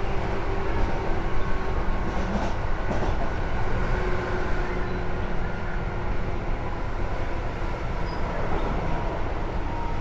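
Tobu 10030 series electric train running between stations, heard from inside the car above the line breaker: a steady rumble of wheels and running gear with a steady hum.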